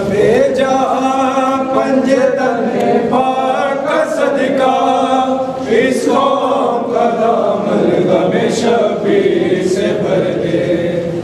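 Many men's voices chanting together in unison, a Shia devotional chant. It runs steadily and loudly through the whole stretch.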